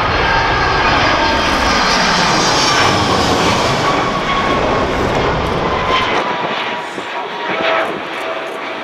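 Airbus A310 airliner passing low overhead on approach, its twin turbofan engines loud with a deep rumble and a whine that falls slightly in pitch as it goes by, then easing off after about six seconds.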